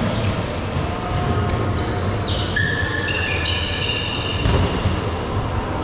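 Dodgeball game on an indoor court: rubber balls bouncing and thudding off the floor and walls, with music playing in the hall.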